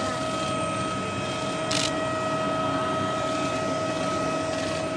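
A steady machine whine holding two constant tones over a continuous rushing noise, with a short hiss about two seconds in.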